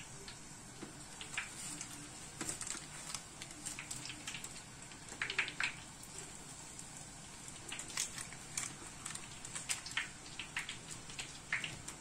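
Dough balls frying in hot oil in a pan: a quiet steady sizzle with many small irregular crackles and pops.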